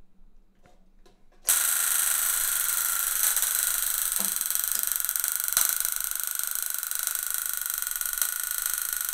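Igniter of a GTD-350 helicopter gas-turbine engine firing a rapid, continuous train of sparks: a steady, harsh electric buzz that switches on suddenly about a second and a half in.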